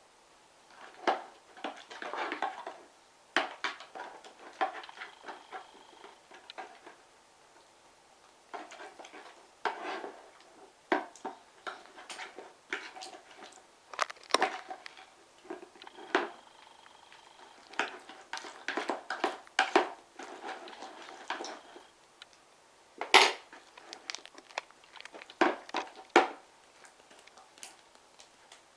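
Slime being stirred and worked in a container as glycerin is mixed in: irregular clacks and scrapes of the utensil against the container, with short sticky squelches.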